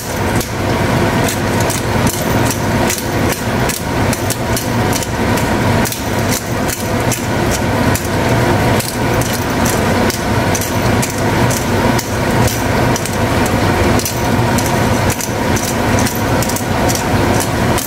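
Chicken livers and gizzards sizzling and bubbling in sauce in a wok, with sharp irregular crackles and pops throughout, over a steady hum.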